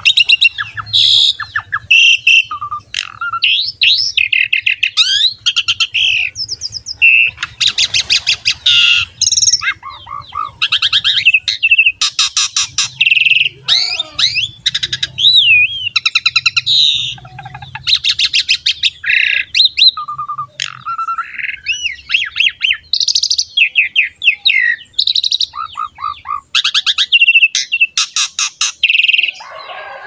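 Pied starling (jalak suren) singing a long, varied song of whistles, gliding notes and rapid chattering rattles, phrase after phrase with only short breaks. It is in full, persistent song.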